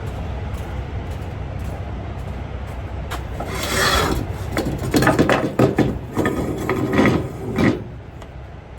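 Cargo strap webbing rubbing and sliding as it is pulled across a flatbed load, several pulls in a row starting about three seconds in and stopping near the end, over a steady low hum.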